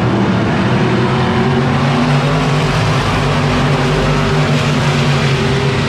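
A pack of IMCA stock cars' V8 engines running hard around a dirt oval, a loud, steady drone of several engines at once.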